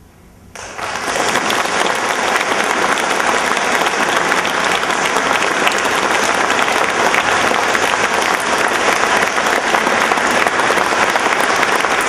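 Audience applause, breaking out about half a second in and going on steadily.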